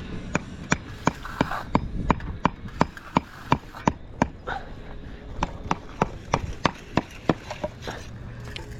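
Rapid, evenly spaced sharp knocks, about three a second, in two runs with a short pause about four seconds in.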